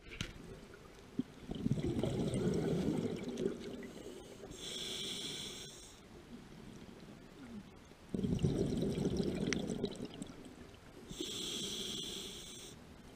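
Scuba diver breathing through a regulator underwater, two breath cycles: each a low gurgle of exhaled bubbles followed by a shorter hissing inhale through the regulator.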